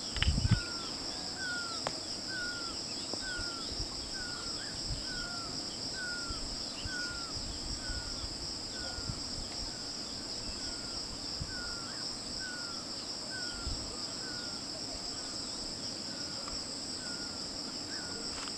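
A steady, high-pitched drone from a chorus of insects, with a short falling note repeated regularly about every two-thirds of a second. A brief low thump at the very start.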